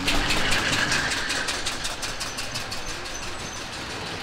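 Early veteran car engine chugging past with evenly spaced exhaust beats, about seven a second, fading away over the first few seconds.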